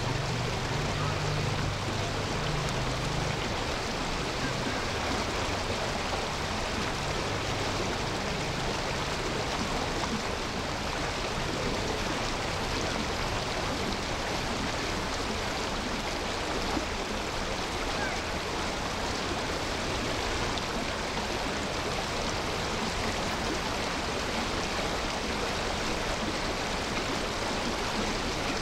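Steady rushing of running water, an even hiss that holds level throughout without breaks.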